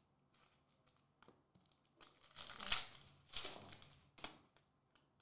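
Foil trading-card pack wrapper crinkling as it is handled, in three or four short bursts from about two seconds in.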